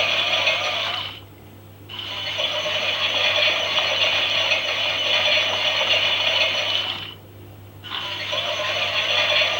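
The small geared motor of a toy Klein Miele washing machine runs, turning the drum with a rattling whir and a wavering whine. It stops for under a second twice, about a second in and again near the end, then starts up again.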